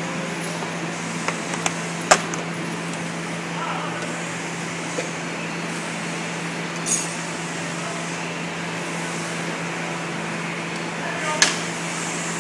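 Steady low hum of workshop machinery with a few sharp knocks and clicks, the loudest about two seconds in and another near the end, as the black plastic winch cover is handled and lifted off the crane.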